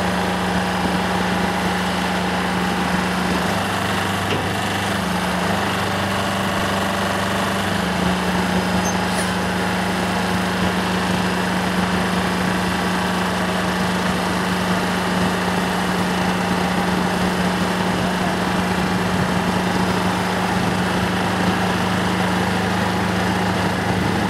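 Heavy truck engine running steadily at low revs, its pitch shifting briefly about four to eight seconds in.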